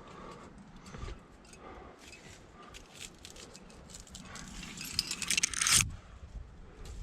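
Climbing hardware (carabiners and quickdraws) jingling and clinking in small clicks, with a louder rushing scrape about five seconds in as the climber brushes against the rock or rubs the microphone.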